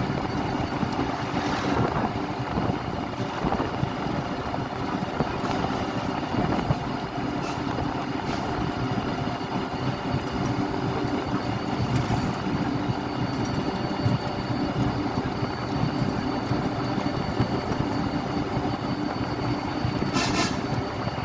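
Steady road traffic: the continuous noise of engines and tyres of vehicles passing, with a few brief sharper high sounds, the clearest near the end.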